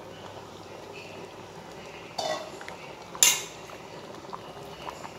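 Mutton curry coming to the boil in a pot on a full gas flame, a steady bubbling. It is broken by two sharp metal clinks of a utensil against the pot, about two seconds in and a second later, the second one much louder.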